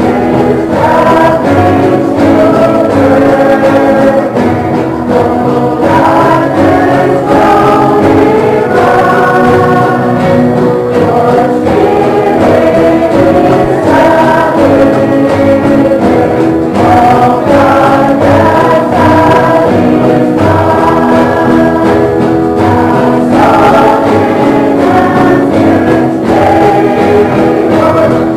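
Christian choral music: a choir singing in sustained chords.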